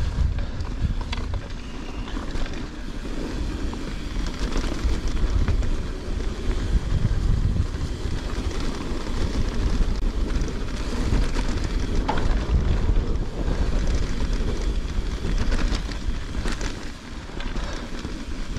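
Wind buffeting a chest-mounted camera microphone over the rumble of mountain bike tyres running fast down a grassy descent, with occasional knocks and rattles from the bike.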